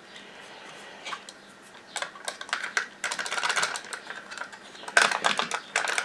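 Rapid plastic clicking and rattling from a robot vacuum's suction fan assembly as it is handled and turned, coming in quick runs from about a second in. The rattle doesn't sound good: something in the fan housing is loose.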